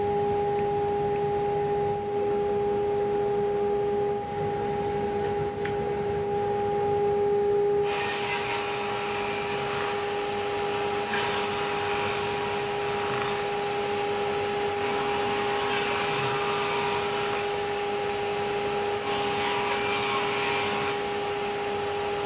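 Bosch table saw running with a steady whine. From about eight seconds in, the blade rips a thin wooden board, a hissing cutting noise that comes and goes over several passes.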